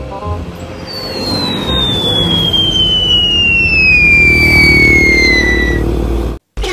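Loud engine-like rumble under a long whistle that falls steadily in pitch for about five seconds; both cut off abruptly near the end.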